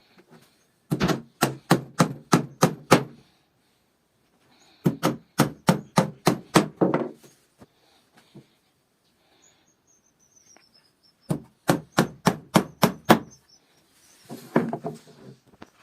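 Hammering on wood: three runs of quick, even blows, about four a second, each run lasting about two seconds, with a short faint squeak between the second and third runs.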